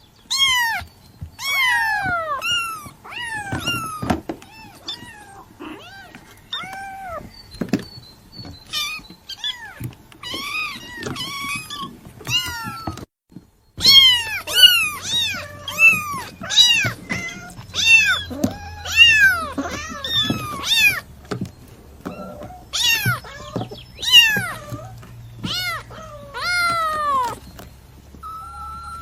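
Kitten meowing over and over: short, high calls that mostly fall in pitch, coming in quick succession. The calls break off briefly about 13 seconds in and come back louder.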